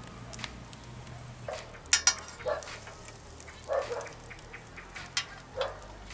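Steel shashlik skewers clinking against each other and knocking on the plate and the rim of a charcoal mangal as they are laid over the coals. A couple of sharp metallic clinks come about two seconds in, among several duller knocks.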